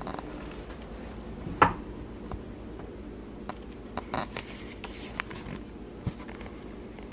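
A door's knob and latch clicking sharply as the door is opened, about a second and a half in, followed by a few fainter clicks and knocks over a steady low hum.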